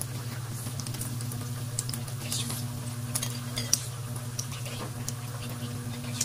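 Bread rolls deep-frying in oil in an aluminium wok: the oil crackles with scattered pops, and a metal fork clicks against the pan as the rolls are turned. A steady low hum runs underneath.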